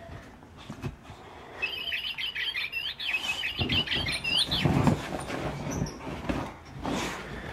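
A plush bird toy gives out a string of quick bird-like chirps, with gliding pitch, for about three seconds from about a second and a half in, as a boxer dog bites and paws at it. Dull thumps and rustling come from the dog pouncing on the soft couch, with the heaviest around the middle and near the end.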